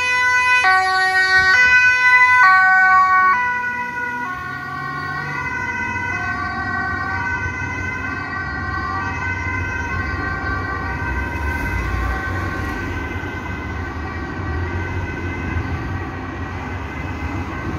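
Dutch ambulance's two-tone siren switching between a high and a low note about twice a second, loud as it passes close. After about three seconds it grows quieter and a little lower in pitch as the ambulance drives away, over a low traffic rumble.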